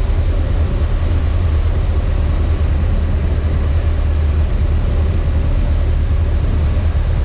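Cessna 150's four-cylinder Continental O-200 engine and propeller running steadily on final approach, heard from inside the cabin as a constant low drone with airflow noise over it.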